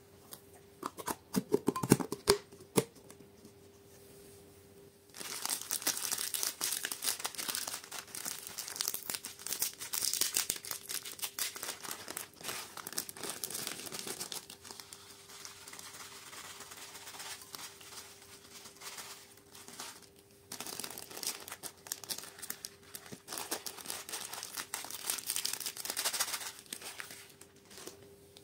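Thin clear plastic bag of glitter crinkling and rustling as hands handle it and tear it open, in dense crackly spells with a quieter stretch midway. About two seconds in, a few sharp clicks and taps from a plastic tub being handled. A faint steady hum runs underneath.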